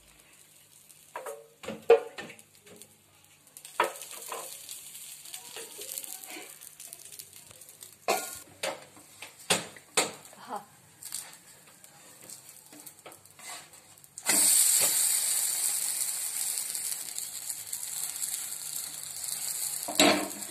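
Uttapam on a hot dosa pan, with a wooden spatula scraping and tapping around it and a faint sizzle. About fourteen seconds in, the uttapam is flipped: the onion-topped side lands on the pan with a sudden loud sizzle that carries on frying. Near the end there is a sharp knock.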